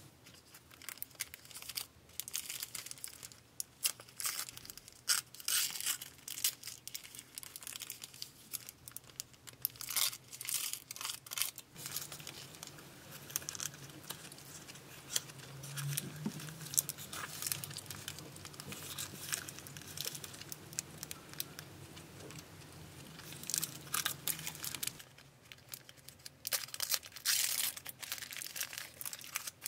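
Paper sandwich wrapper crinkling and rustling as the wrapped sandwich is handled, in bursts of crackle.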